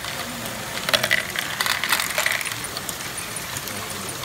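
Small plastic balls clattering and clicking through LEGO ball-run modules, with a dense run of quick clicks from about a second in that lasts over a second, over a steady background hum.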